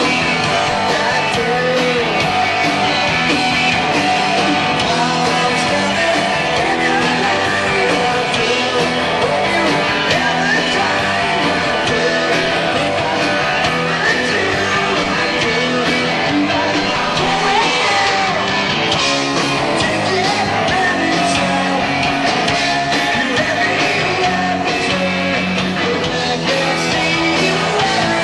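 Live grunge rock band playing a song at full volume: distorted electric guitar, bass and drums with shouted, sung vocals. It is taped from the audience on a cassette recorder, so the mix is dense and a little muddy.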